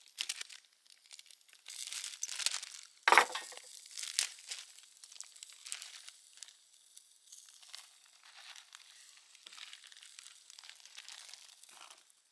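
Irregular crinkling and rustling, with one sharp knock about three seconds in.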